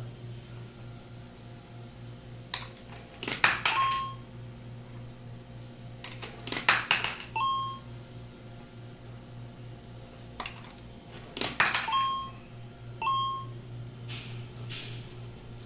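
Coins dropped into a piso wifi vending machine's coin acceptor, each drop a short clatter followed by a brief electronic beep as the credit registers. There are four beeps in all, the last two close together.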